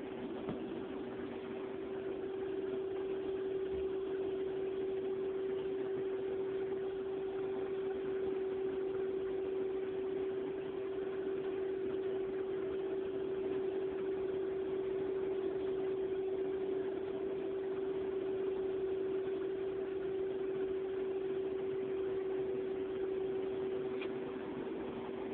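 Steady machine hum from an indoor hydroponic grow, one unchanging drone over an even hiss, with a single faint tick near the end.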